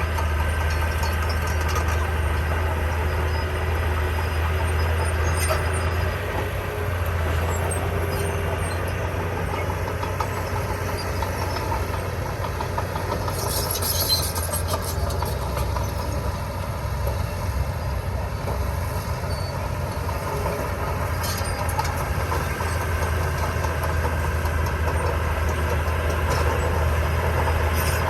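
Heavy diesel engine of construction machinery running steadily with a low hum, with a brief high hiss about halfway through.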